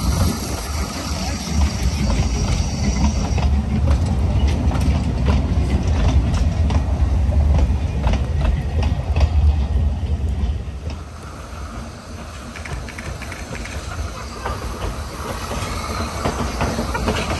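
Narrow-gauge steam train's coaches rolling past close by, wheels clicking over the rail joints over a heavy rumble. About ten seconds in the sound drops to a quieter, more distant steam train running on.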